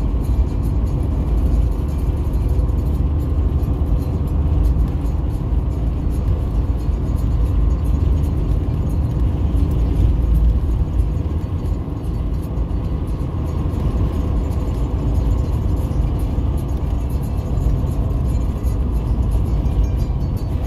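Steady low rumble of a car driving, engine and tyres on the road, heard from inside the cabin.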